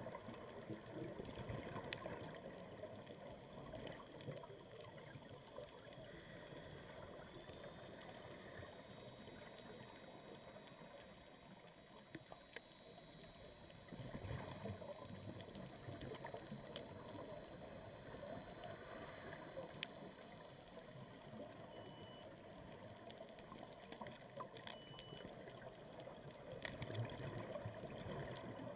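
Scuba diving heard underwater: faint, muffled water noise with a diver's exhaled bubbles swelling up as low bubbling about three times, roughly every thirteen seconds. A faint high regulator whistle comes between the bubble bursts twice, with a few small clicks.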